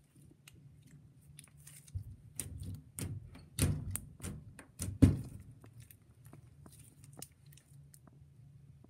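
Slime being squished and poked by hand, a run of sticky crackles and pops that is loudest about five seconds in.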